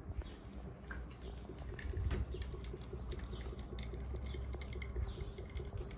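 A toy water dispenser's plastic tap clicking as it is pressed, with a thin trickle of water running into a small paper cup.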